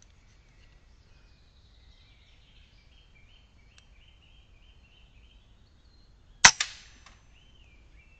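A single shot from an RTI Prophet P3 PCP air rifle about six and a half seconds in: a sharp crack, a quick second knock right after and a short fading tail. Birds chirp faintly before it.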